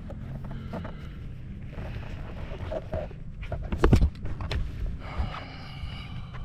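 Handling noise: rustling and scraping over a steady low rumble, with a loud knock about four seconds in.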